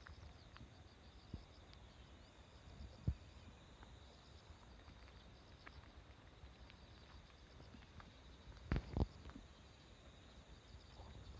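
Faint insects chirping: a high shrill trill pulsing about three times a second over a lower trill. A few short soft knocks sound through it, the loudest two in quick succession about three-quarters of the way through.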